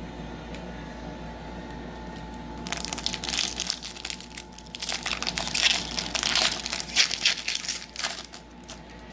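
Foil trading-card pack wrapper crinkling as it is handled and opened, in dense irregular bursts from about three seconds in until near the end.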